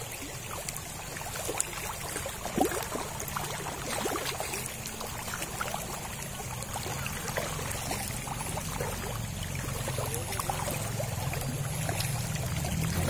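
Shallow river flowing, with many small splashes and slurps as a crowd of fish snatch food pellets at the surface; one sharper splash about two and a half seconds in.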